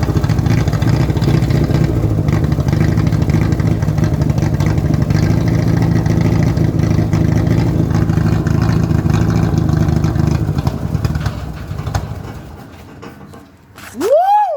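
Chevrolet Opala engine running steadily with a deep rumble, dying away about eleven seconds in. Near the end comes a short, loud tone that rises and then falls in pitch.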